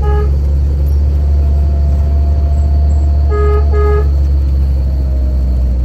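Vehicle horn tooted in short blasts, once at the start and twice in quick succession about three and a half seconds in, over the steady low drone of the vehicle driving. The toots warn oncoming traffic on a steep, narrow, unlit road where the driver cannot see whether a car is coming the other way.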